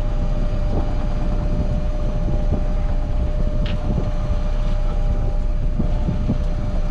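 Fishing boat machinery running steadily while lobster pots are hauled: a constant low rumble with a steady whine over it, and a few light knocks.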